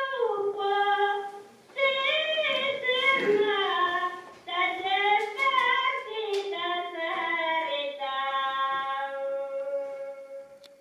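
Recorded Roumean (Azov Greek) folk song played back: a high solo voice singing unaccompanied, with a thin, old-recording sound, the melody ending on a long held note near the end.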